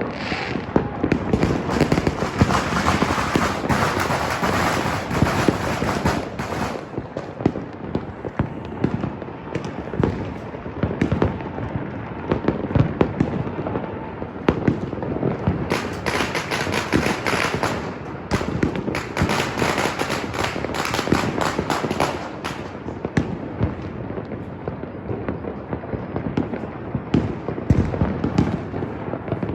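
Many fireworks and firecrackers going off at once in a continuous crackling barrage of overlapping bangs and pops, with two denser, heavier stretches.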